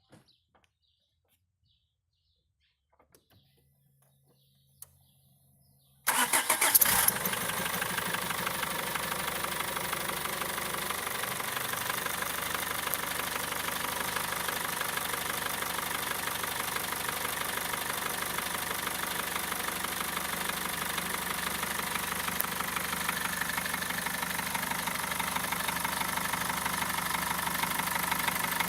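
BMW M47TU four-cylinder common-rail diesel cranking and starting about six seconds in, then idling with a knock. Before the start there are only a few faint clicks and a brief low hum.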